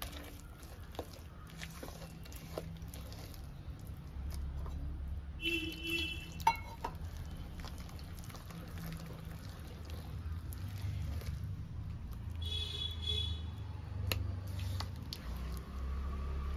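Kitchen handling sounds: soft wet squishing and scattered light clicks over a steady low hum, with a short high chirp or squeak twice.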